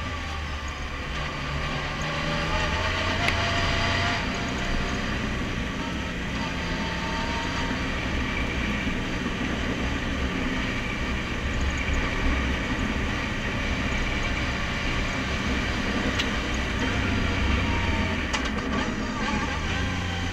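Side-by-side UTV's engine running under way on a rough dirt trail. Its pitch rises as it pulls up through the first few seconds and again about six seconds in, and drops back near the end, over steady road and chassis noise.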